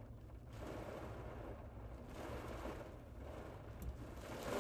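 Tornado winds buffeting a pickup truck, heard from inside the cab: a steady low rumble under swells of rushing wind, with a stronger gust near the end.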